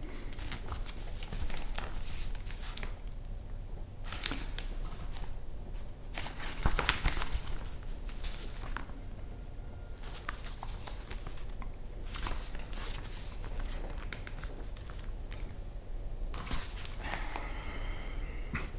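Newspaper rustling and crinkling as its pages are handled and lifted, in irregular bursts, over a low steady rumble of a train carriage.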